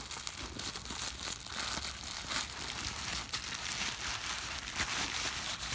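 Bubble-wrap packaging crinkling and crackling as it is handled and pulled off a Blu-ray case by hand, a steady run of small crackles.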